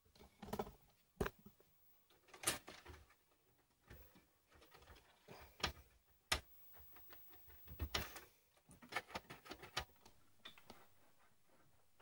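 Scattered light knocks, clicks and rustling from a sheet-metal desktop PC case being handled and shifted by hand, with about a dozen irregular sharp clicks among them.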